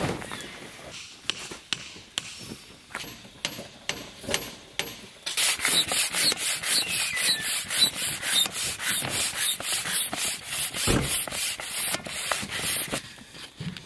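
Hand pump inflating an air swag: quick, evenly paced whooshing strokes, about three to four a second, growing louder and steadier from about five seconds in and stopping near the end.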